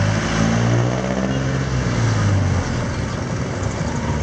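Jeepney's diesel engine running as it drives past close by and pulls away, with a steady low engine note over road and tyre noise.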